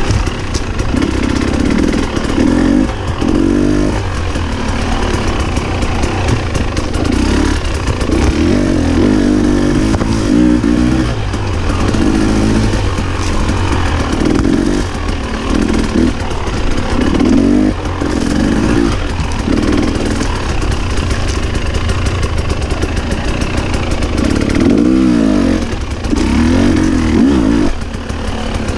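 Husqvarna TE 300i two-stroke enduro motorcycle ridden on a trail, its engine revving up and backing off again and again, every second or two, over a steady rushing noise.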